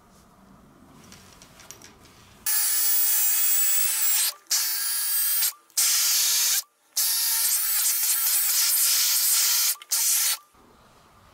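Dyson V15 Detect cordless stick vacuum running with a small motorized brush tool on a fabric cushion, sucking up shed cat fur. It gives a loud, high, airy rush that starts suddenly about two and a half seconds in, cuts out briefly four times, and stops near the end.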